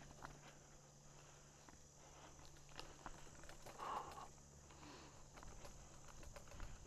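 Faint clicks and rattles of a mountain bike rolling over a leaf-covered dirt trail, with one louder moment about four seconds in.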